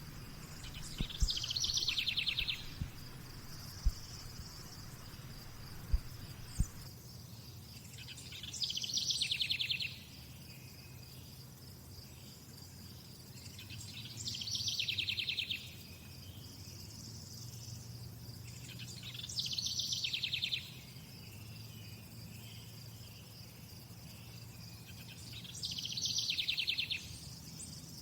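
Crickets trilling steadily, with a louder, rapidly pulsed call of about a second and a half repeating five times, roughly every six seconds. A few sharp clicks come in the first few seconds.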